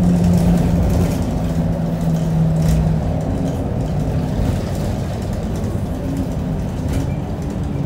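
Onboard running sound of an Isuzu Erga QPG-LV290N1 city bus under way, its diesel engine and drivetrain rumbling. A steady tone drops away about three seconds in, and the overall level eases off slightly.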